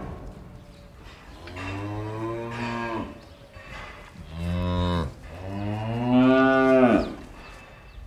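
Cows mooing in a barn: three moos, a long one, a short one, then a longer, louder one near the end.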